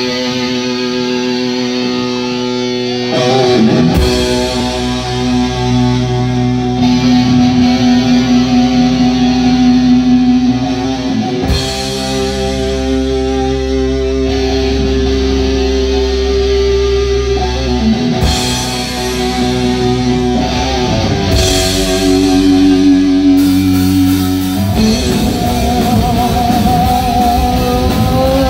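Live heavy rock band playing loud on electric guitars and bass guitar, holding long chords that change every few seconds, with the bass dropping in and out.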